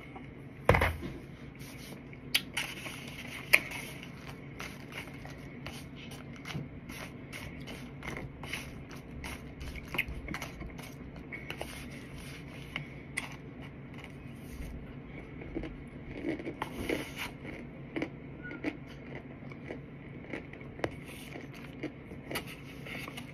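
Chewing crunchy chunks of cornstarch close to the microphone, with a plastic fork scraping and tapping a plate: irregular crisp clicks and crunches, and a louder knock about a second in.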